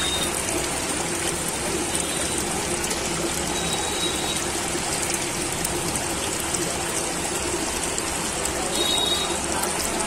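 Aquarium water running steadily: a continuous splashing trickle of water into a fish tank.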